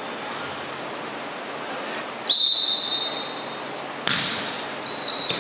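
A referee's whistle blows once, a short high blast, and about two seconds later a volleyball is struck with one sharp smack, over the steady noise of a sports hall.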